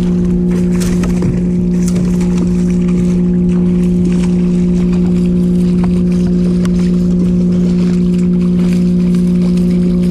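Steady, even hum of a small boat's electric trolling motor, holding one pitch, with irregular splashing from a hooked bass thrashing at the surface beside the boat.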